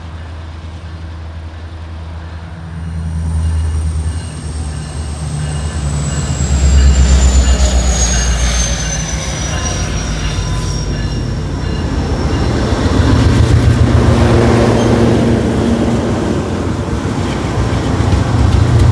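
Diesel-electric freight locomotives passing directly below: deep, steady engine sound that grows loud as the lead unit passes about seven seconds in and swells again as the second unit goes under near the end. A high whine slides steadily down in pitch over the first ten seconds.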